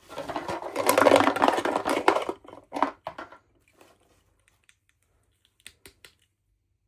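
Rustling and scraping of small objects being handled for about two seconds, followed by a few light clicks.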